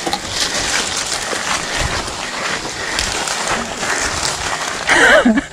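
Mountain bike riding over a dirt trail covered in dry leaves: steady tyre noise on the ground with scattered clicks and knocks from the bike rattling over bumps. A voice calls out near the end.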